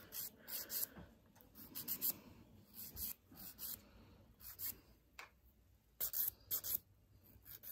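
A hand nail file rasping across acrylic nails in short strokes, coming in quick runs of two or three with brief pauses between them.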